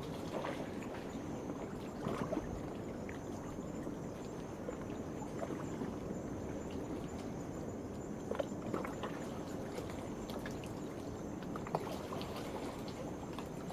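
Waves washing and lapping against a rocky shore, with small irregular splashes, under a steady high chorus of night insects.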